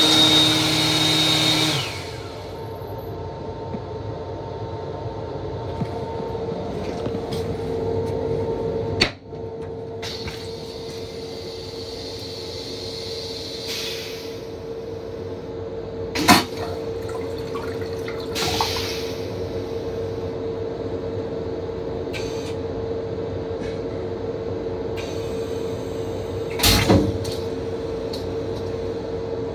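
Train-car toilet flushing near the end with a short loud rush as water drains from the stainless bowl, over the railcar's steady hum. Before that come a few clicks and knocks, and at the start the washbasin's sensor fixture runs with a high whine and cuts off about two seconds in.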